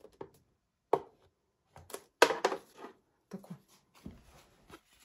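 A few short scrapes and knocks: a bone folder pressing cardstock into the grooves of a plastic scoring board, then the scored card being handled and lifted off the board. The sounds come singly, roughly a second apart, with the loudest a little after two seconds in.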